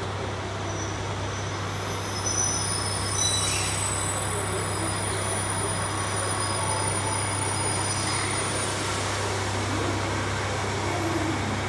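Diesel railcars idling at a station platform: a steady low engine hum, with a brief high-pitched squeal about three seconds in.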